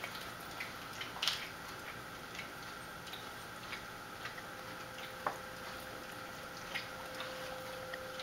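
Irregular clicks and taps of dogs' claws on a hard floor as they shift about, with a sharper cluster about a second in and single clicks later, over a faint steady hum.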